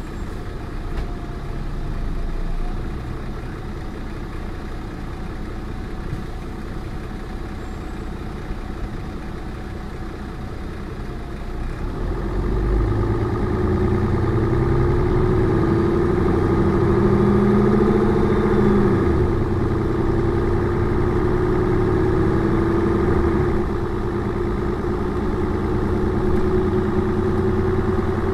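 Mercedes-Benz O405N2 city bus engine running at low revs, then about twelve seconds in it speeds up and gets louder as the bus pulls away. Its pitch climbs, drops back a little after a few seconds and then holds steady.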